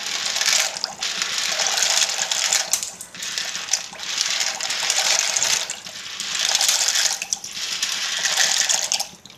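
Dry elbow macaroni pushed by hand off a plate into a steel pot of hot water: the pieces rattle off the plate and splash into the water, in several waves with short gaps.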